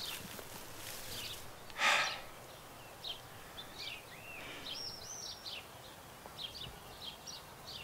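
Quiet outdoor ambience with birds chirping in a run of short, high calls through the second half, and a single short breathy hiss about two seconds in.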